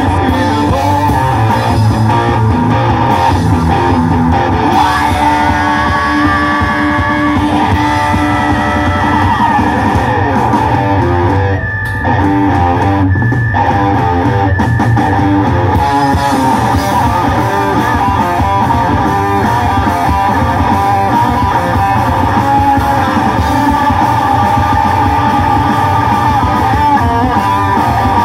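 Live rock band playing loud: electric guitars, bass guitar and drum kit, with a brief drop-out about twelve seconds in.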